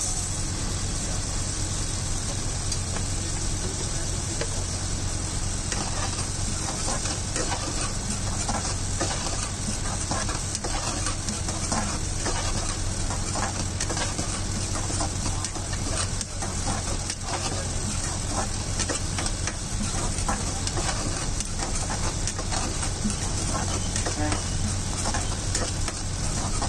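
Metal spoon stirring and scraping vegetables and sauce in an aluminium wok, with a steady sizzle of frying. The scraping clatter grows busier from about six seconds in, over a steady low hum.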